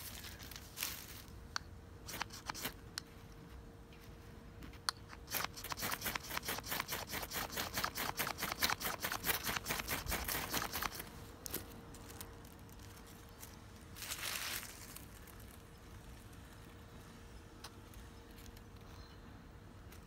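Knife blade scraping along a wooden stick in quick repeated strokes, about six a second for some five seconds, after a few scattered clicks. A single rasping scrape of about a second follows later.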